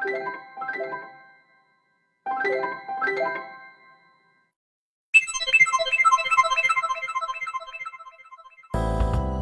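Built-in Android 14 Go Edition phone tones on a Xiaomi Redmi Go 2, played one after another: a short chime pattern of a few pitched notes heard twice, then after a pause a rapid run of chiming notes that fades away, and near the end a fuller tune with a bass line begins.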